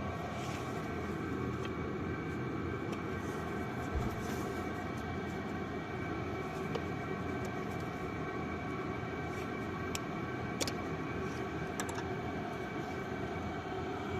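Renault car engine idling steadily, with a few faint ticks over it.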